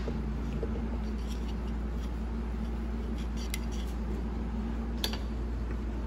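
Steady low hum with a few faint clicks and taps of metal transmission parts being handled while lube is applied to them.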